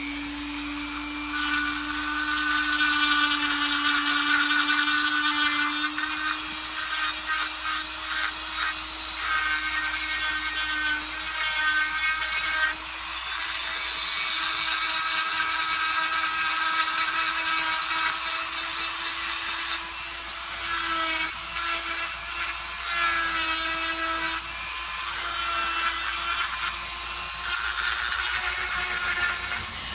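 Dremel rotary tool with a tapered burr running at a steady high speed, its motor whining at one pitch while the burr grinds into wood in uneven, on-and-off passes.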